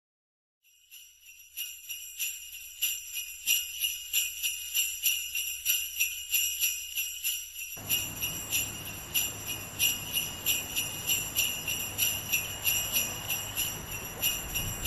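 Jingle bells shaken in a steady rhythm, fading in about a second in. About eight seconds in, a steady background noise with a low hum joins them.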